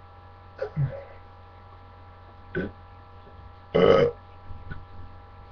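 A man's short, small burps: one about a second in, a brief one near the middle, and a louder one of about a third of a second near the end.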